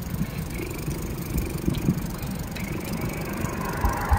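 Bicycle riding along a concrete sidewalk: steady low rumble of the tyres and wind on the microphone, with a few light knocks and thumps, the heaviest near the end.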